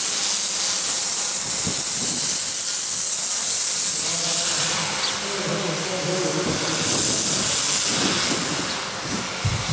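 High-pressure cleaning jet hissing steadily as graffiti is blasted off a stone wall, easing slightly a little past halfway.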